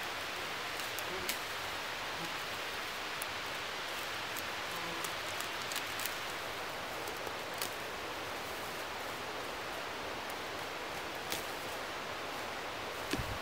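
Moss and blueberry shrubs being pulled and handled, with soft rustling and a few scattered sharp snaps of twigs. A steady, even hiss runs underneath.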